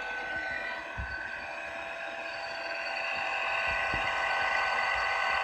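Vintage thermal camera's scanning mechanism running: a steady whir with several constant tones, getting a little louder after about three seconds. A few short low thumps land over it.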